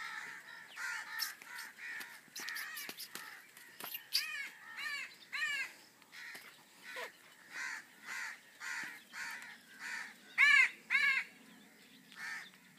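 A crow cawing over and over, harsh calls about two a second at first, then more spaced out, with the two loudest a little after ten seconds in.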